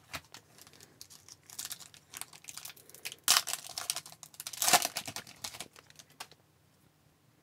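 Foil wrapper of an Upper Deck hockey card pack crinkling as it is handled, then torn open with two louder rips a little past the middle. More rustling follows as the stack of cards is slid out.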